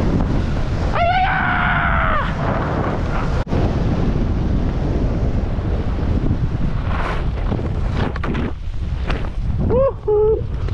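Wind buffeting an action camera's microphone while skiing fast downhill, with skis hissing over packed snow. A person's whoop rises and falls about a second in, and a shorter shout comes near the end.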